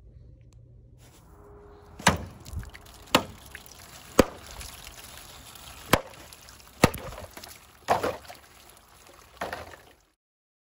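Wootz steel dagger chopping into a water-filled plastic jug on a wooden table: seven sharp strikes over about seven seconds, with water splashing.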